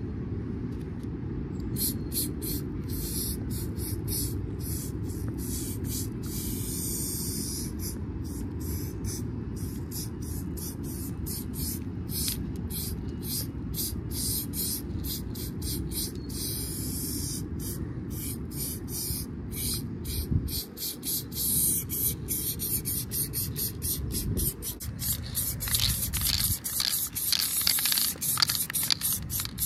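Aerosol spray paint can hissing in repeated short and longer bursts, coming thicker and louder near the end, over a steady low rumble.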